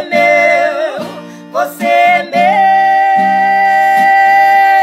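Singing with acoustic guitar accompaniment: a short sung phrase with wavering notes, then a long held note from about two and a half seconds in, over strummed chords.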